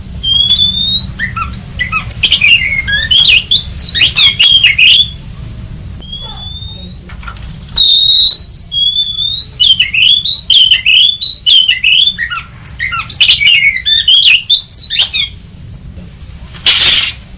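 Oriental magpie-robin singing: rapid runs of varied whistled notes sliding up and down, with a short pause in the middle and a brief harsh rasping note near the end.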